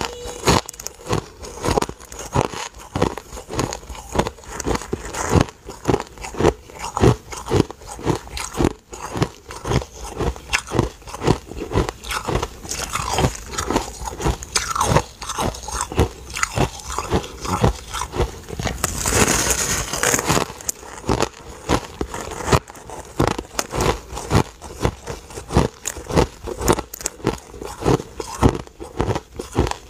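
A person biting into and chewing a slab of compacted, snow-like crushed ice: crisp crunches, about two to three a second, with a longer, hissier crunch about two-thirds of the way through.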